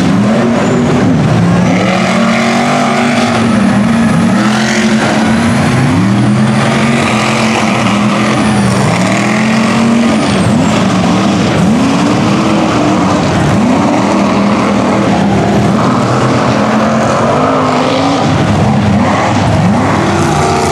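Lifted mud trucks' engines revving hard through a mud pit, the pitch climbing and dropping again and again every couple of seconds as the throttle is worked.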